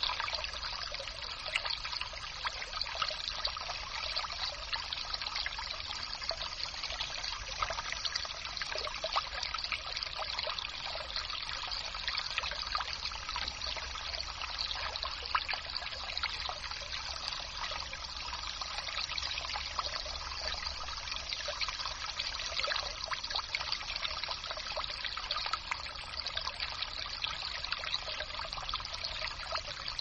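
Water trickling steadily, like a small brook, with many tiny splashes over an even rushing hiss.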